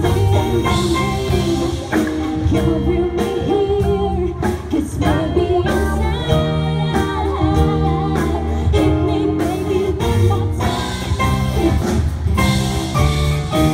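A live band playing a song through PA speakers: a singer over keyboard, electric guitar, bass and drum kit.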